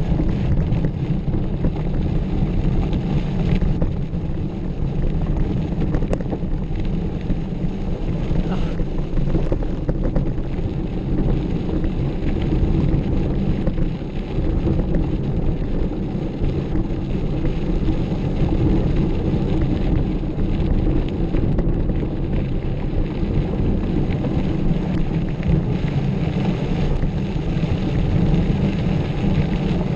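Steady low rumble of wind buffeting the microphone and tyres running over the trail during a mountain bike ride, with a few faint knocks and rattles.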